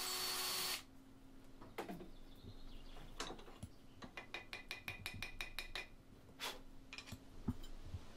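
A cordless drill runs in the hole of a knife handle and stops just under a second in. Light clicks and taps follow as the handle is worked at the vise and the blade tried in it, with a quick run of about seven clicks a second around the middle.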